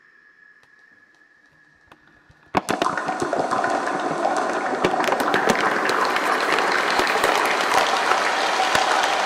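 Clear plastic bottle crinkled and squeezed by hand, fed through a multi-tap delay so the crackles pile into a dense, sustained wash. It starts suddenly about two and a half seconds in.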